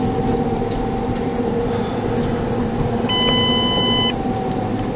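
Steady road and engine noise from inside a moving vehicle, with an electronic beep about a second long a little past the middle.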